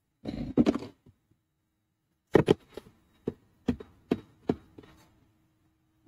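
A short scuffle of handling noise, then a run of about eight sharp clicks and knocks that fade over some three seconds: a screwdriver and hands working at the plastic inside-handle trim of a Chevrolet Tahoe door panel.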